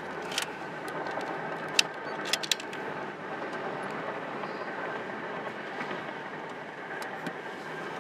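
Steady road and engine noise inside a moving car, with a few sharp clicks and taps, most of them in the first three seconds.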